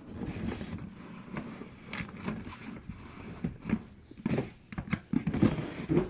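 Plastic fidget toys being handled and rummaged through: irregular light clicks, taps and rustling as they are picked up and set down.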